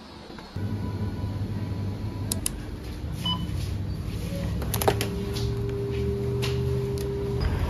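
Supermarket checkout: a steady low motor hum from the checkout conveyor belt, with a few sharp clicks, a short beep about three seconds in, and a steady tone held for a few seconds in the second half.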